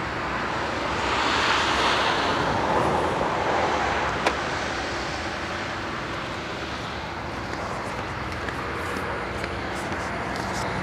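Steady traffic noise that swells as a vehicle passes about one to three seconds in. A single sharp click comes about four seconds in.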